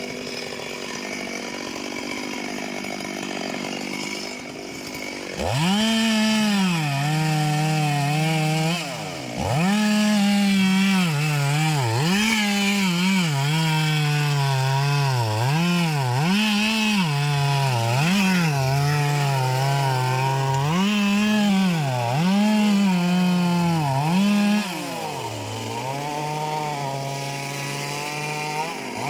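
Two-stroke chainsaw cutting into a large anjili (wild jack) trunk, running at high revs. From about five seconds in, its pitch repeatedly sags and climbs back as the chain bites into the wood. Near the end it settles back to a steady note.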